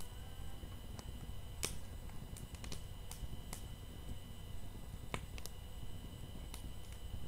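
Large wood bonfire crackling, with sharp irregular pops from the burning wood, about nine over several seconds, over a low rumble.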